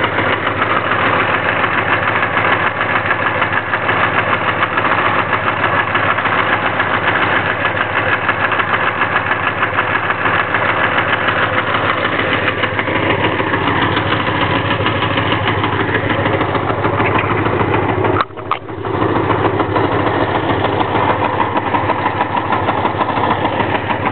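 1984 Honda Magna V65's 1100 cc V4 engine idling steadily on full choke with no throttle, just after a hard cold start. The sound breaks off briefly once, about three-quarters of the way through, then carries on.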